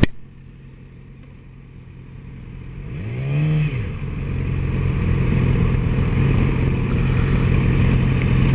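Sport motorcycle engine, quiet at first, then revved up and back down briefly about three seconds in. It then runs steadily and louder as the bike gets under way.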